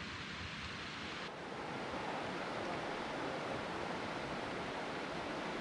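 Steady rushing of a mountain creek's flowing water. About a second in, the sound changes abruptly and becomes a little louder and fuller.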